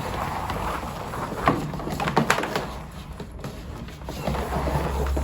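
Pressure washer hose being wound up onto the AVA P60's hose reel: irregular plastic scraping and rattling with several sharp clicks and knocks.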